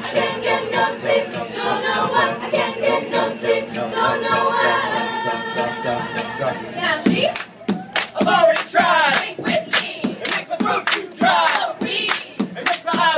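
A cappella vocal group singing wordless sustained chords over a steady beat of sharp percussive strokes. About seven seconds in, the held chords break off and voices slide up and down in loose riffs and calls, with hand claps.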